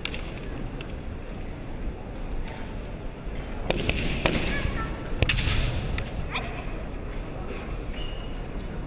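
Kendo bout: a handful of sharp cracks from bamboo shinai strikes and stamping feet, clustered between about three and a half and six and a half seconds in, over the steady noise of an arena crowd.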